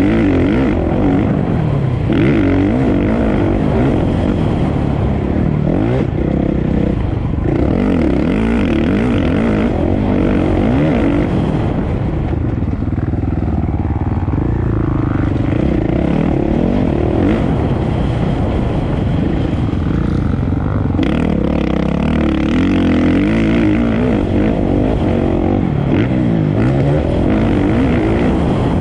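Racing engines revving hard, their pitch rising and falling over and over with gear changes and throttle, several overlapping.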